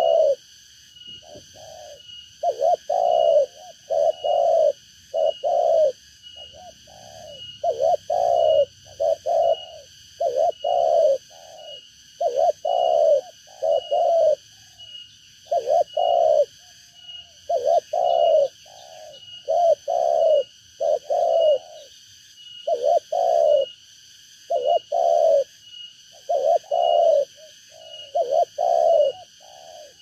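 Spotted dove (tekukur) cooing over and over, a tame decoy bird calling in short clusters of two or three low coos every second or two. A steady high-pitched drone runs behind it.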